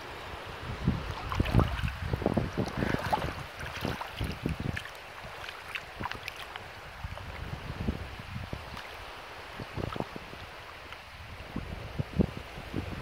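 Wind buffeting the microphone in irregular gusts, strongest in the first few seconds and again near the end, over shallow seawater lapping on the sand.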